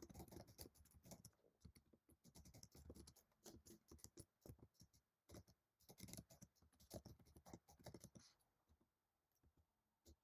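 Faint typing on a computer keyboard: an uneven run of quick key clicks that stops about eight seconds in.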